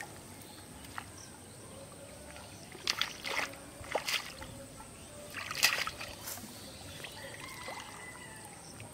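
Quiet pond-side outdoor ambience, with several short rustles and light taps scattered through it. These come from people moving in tall grass at the water's edge and handling bamboo fishing poles.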